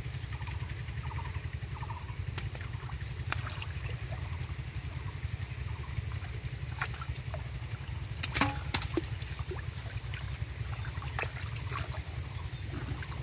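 Hands sloshing and squelching in shallow muddy water while groping for catfish, with scattered small splashes and a louder splash a little past halfway. A steady low rumble runs underneath.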